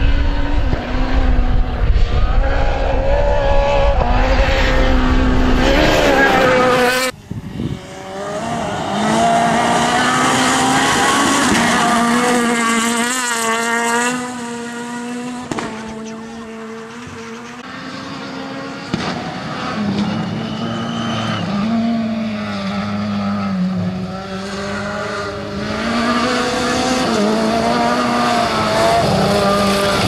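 Renault Clio rally car's engine revving hard at full throttle on a gravel stage, its note climbing and dropping sharply through gear changes over several passes. There is an abrupt cut about seven seconds in.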